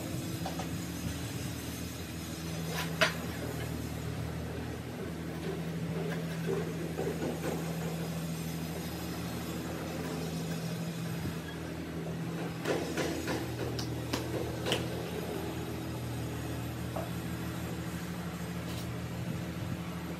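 A steady low machine hum runs throughout. A few sharp clicks and knocks come through it, one about three seconds in and a few more later, as ceramic paving tiles are handled and set down on the wet mortar bed.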